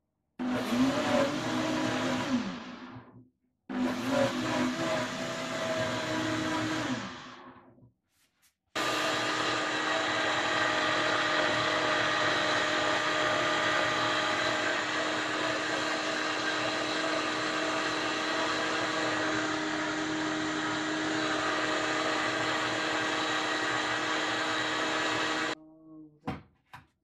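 Countertop blender motor running with a jar of thick cake batter. It runs in two short pulses whose pitch falls as each winds down, then one long steady run that cuts off suddenly near the end.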